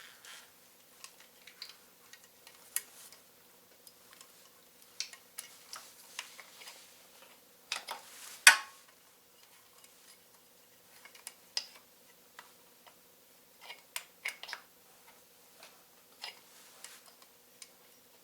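Small metal parts and hand tools clicking and clinking as the motorcycle's rear brake pedal parts are fitted by hand: scattered light taps, with one loud sharp clack about halfway through.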